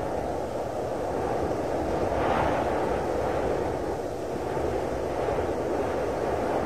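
Steady rushing wind noise, swelling in a gust about two seconds in and again a little after five seconds.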